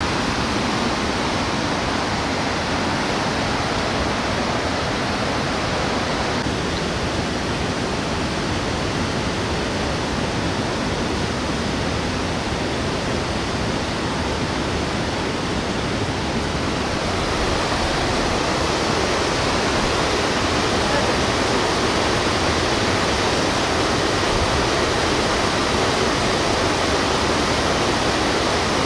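Fast mountain river rushing over rapids: a steady wash of white-water noise, a little louder from about two-thirds of the way in.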